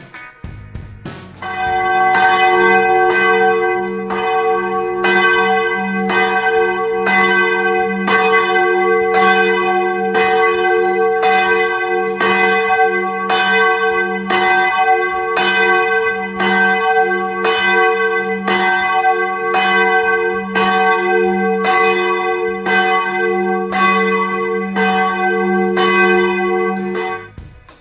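Large bronze church bells ringing at close range, struck over and over about every three-quarters of a second, with a loud steady hum building beneath the strikes. The ringing starts about a second and a half in and stops just before the end.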